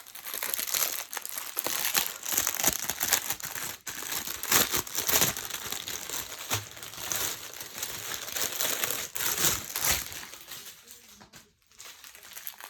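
Plastic crinkling and rustling, irregular and continuous, as a diamond-painting kit's plastic-covered canvas and packaging are handled, with a short lull near the end.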